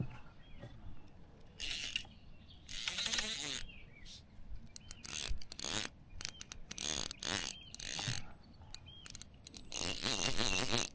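Fishing reel working against a hooked sea trout: the drag ratchets and the reel clicks in a series of irregular bursts, some short ticks and some about a second long.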